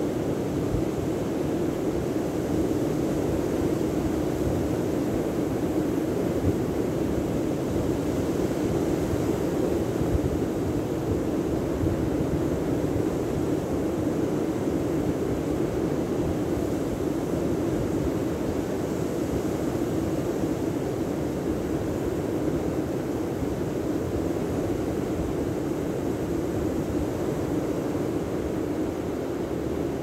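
Steady seaside noise of surf breaking along a sandy shore, mixed with wind, an even rush with no single wave standing out.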